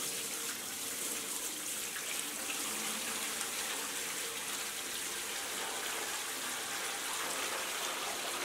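Water poured from a bucket, splashing steadily into the empty coolant tank of a CNC mill, filling the resealed tank to test it for leaks.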